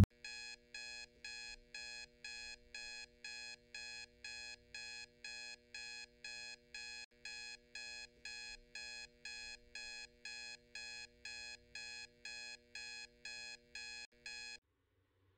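Electronic alarm clock beeping, about two short beeps a second, until it cuts off abruptly near the end.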